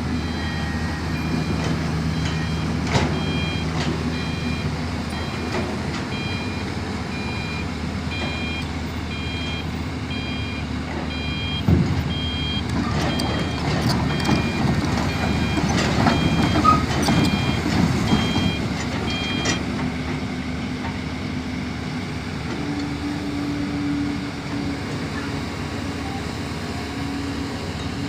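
A Zoomlion long-boom excavator's diesel engine running, with its travel alarm beeping about once a second as the machine moves; the beeping stops about two-thirds of the way through and the engine note rises a little. There is one sharp knock near the middle.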